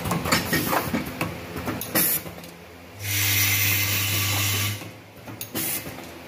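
Full-auto data cable soldering machine running: a rapid clatter of clicks, short sharp hisses, and from about three seconds in a loud steady buzz with hiss lasting nearly two seconds, then another short hiss.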